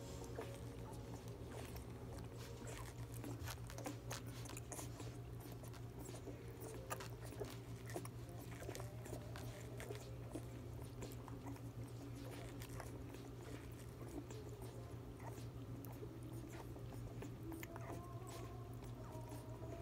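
Twelve-day-old Rottweiler puppies suckling at their mother's teats: irregular small wet clicks and smacks from their mouths over a steady low hum.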